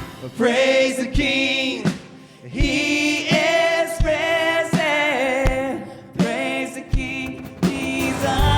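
Live worship song in a stripped-down passage: the band drops out, leaving singers holding notes with vibrato over a low thump about every second and a half. The full band comes back in near the end.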